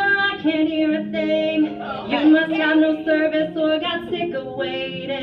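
A woman singing a slow melody solo into a microphone, holding long notes with small slides between them.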